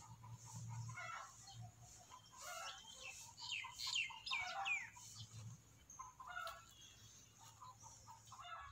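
Birds calling and chirping, faint, with a cluster of quick falling chirps about three to five seconds in, over a low steady hum.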